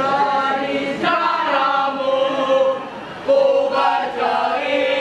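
A troop of school scouts singing a yel-yel (scout cheer song) together in chorus, with held notes. The singing breaks off briefly about three seconds in, then comes back loud.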